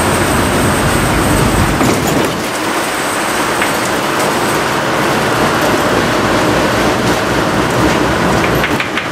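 Steady engine and tyre noise heard from inside a route bus as it drives along a snow-covered road.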